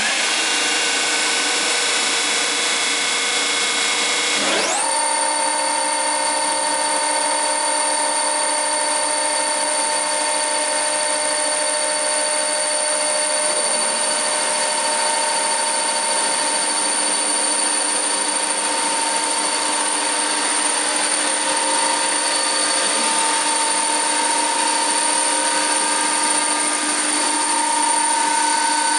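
Weinig Profimat 22N four-sided planer running, its spinning cutter spindles giving a steady high-pitched whine. About four and a half seconds in, the whine climbs quickly in pitch and then holds steady.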